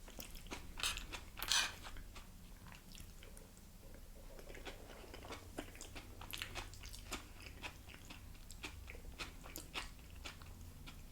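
Close-up mouth sounds of a person biting and chewing a crunchy fried tostada shell: a string of brittle crunches, the loudest about a second and a half in.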